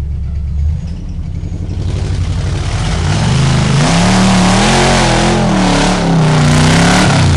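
Off-road truck's engine revving hard under load as it claws up a muddy hill, the revs climbing from about two seconds in, held high and wavering, then dropping near the end. Spinning tyres throw mud under the engine noise.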